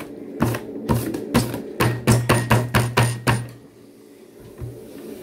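Hands drumming a rhythm on a wooden tabletop: about a dozen sharp knocks, speeding up to four or five a second, then stopping about three and a half seconds in.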